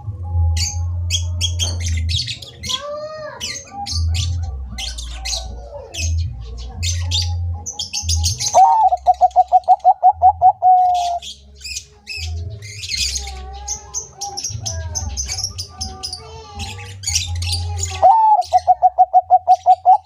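Zebra doves singing: twice, a loud run of quick, evenly repeated coo notes, about ten a second for a couple of seconds, over steady high chirping from small birds and a low hum.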